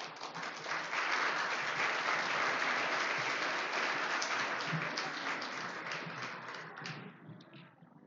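Audience applauding: many hands clapping at once, starting suddenly, then thinning out into a few last separate claps near the end.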